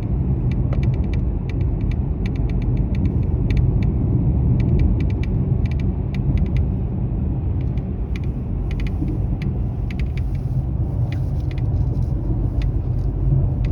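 Irregular crackling and rattling clicks from the dashboard trim of a Mercedes-Benz E-Class (W213), coming in quick clusters over the steady low rumble inside the car's cabin. It is an intermittent rattle whose cause the dealer has not been able to find.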